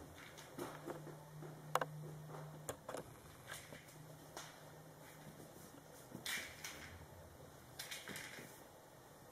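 Scattered light taps and scrapes of a kitten's paws and a toy mouse skittering on a tiled floor, with one sharper click about two seconds in.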